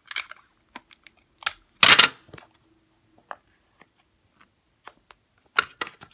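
Crafting handling noises: clicks, taps and rustles as a tape-wrapped cardboard tube and a small clear plastic container are picked up and set down on a table, with one short loud rustle about two seconds in and a quick run of clicks near the end.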